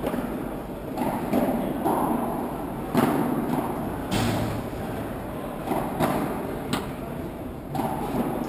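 Padel ball being struck, sharp pops every second or two at an uneven pace like a rally, echoing in a large metal-roofed hall over a murmur of voices.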